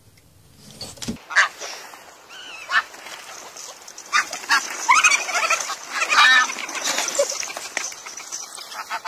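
A flock of domestic geese honking, starting about a second in with scattered calls that grow into a loud, dense chorus of overlapping honks from about four seconds in.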